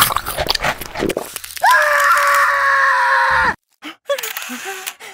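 A high-pitched cartoon Minion voice lets out one long scream of about two seconds that cuts off suddenly, followed by short squeaky gibberish syllables. Before the scream there is about a second and a half of noisy clatter.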